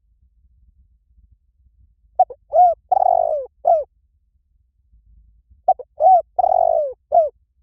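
Spotted dove cooing: two phrases a few seconds apart. Each phrase has four notes: a short note, an arched note, a longer drawn-out note that falls at its end, and a final arched note.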